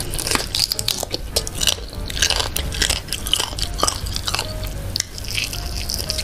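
Close-miked chewing and biting of fried duck, with many quick, irregular crunches.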